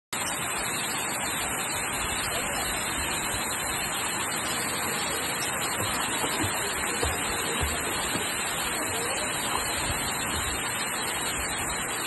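Steady rushing of a waterfall pouring into a pool, with a few small water splashes from a swimmer kicking around the middle.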